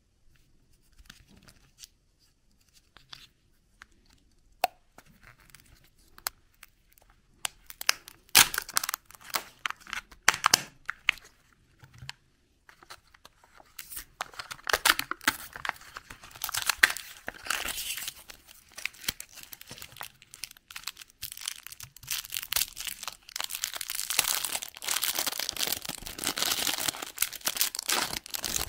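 Hands peeling the printed wrapper off a plastic surprise egg and crinkling its packaging. There are faint handling clicks at first, then sharp crackles and tearing from about eight seconds in, and dense, steady crinkling through most of the second half.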